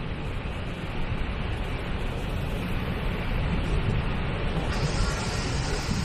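Steady, deep rush of a large waterfall's water pouring over the brink. A brighter hiss joins about three-quarters of the way through.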